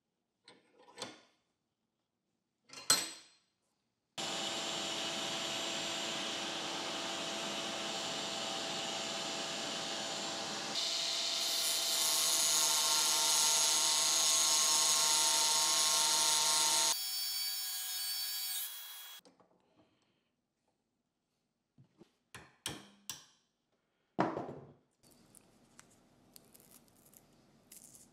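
Angle grinder with a thin cut-off wheel cutting through a steel hex key clamped in a bench vise, with a shop vacuum drawing off the dust. A steady machine whine starts about four seconds in, gets louder and brighter partway through, then stops and dies away. Brief clicks and knocks of handling come before and after.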